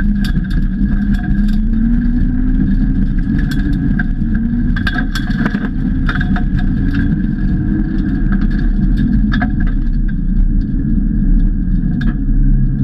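BMW E46 Compact rally car's engine pulling hard on a gravel stage, heard from inside the car, its pitch climbing slowly through the middle and then dipping. Gravel stones clatter against the underbody in many sharp clicks.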